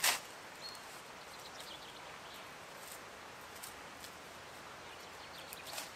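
Quiet woodland background with a sharp click at the very start, then a few faint ticks and one brief high chirp.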